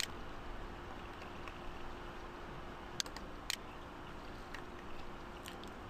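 Faint room noise with a low steady hum, broken by a few sharp computer-mouse clicks, two of them close together about three seconds in.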